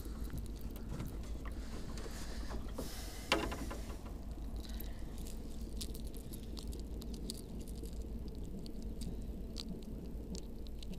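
Close handling noise of a freshly caught perch being unhooked from a lure: small clicks, scrapes and rustles of the treble hooks and hard plastic bait in the hands, over a low steady rumble. One sharper, louder sound stands out about three seconds in.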